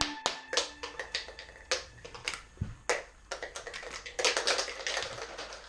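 A string of sharp, irregularly spaced clicks and snaps, with a quick cluster of them about four seconds in.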